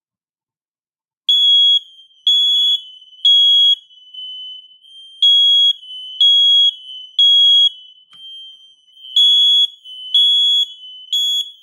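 An ageing ionization smoke alarm, about 15 years old, sounds its piezo horn in the three-beep temporal pattern. It gives three groups of three loud, high-pitched beeps, starting about a second in, with a fainter tone lingering between the beeps. The horn doesn't sound really nice.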